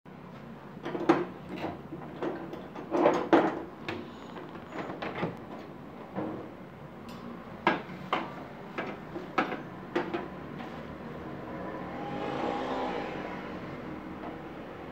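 Metal clanks and knocks of a gas hob's pan supports and burner caps being lifted off and set down on the stainless steel top. A longer scraping rattle comes near the end.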